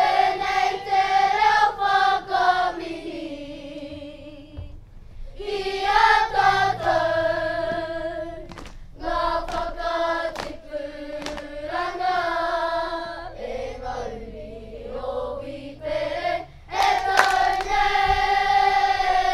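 A group of school children singing a Māori waiata together in unison, in sung phrases with short breaks between them.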